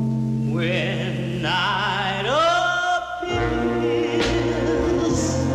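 A 1960 vocal-group record playing: singing with vibrato from a lead vocal and chorus over held low bass notes, the voices sliding up to a new note about two seconds in.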